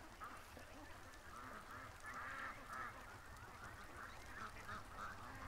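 Faint, steady chatter of a flock of domestic geese and ducks: many short, overlapping honking calls.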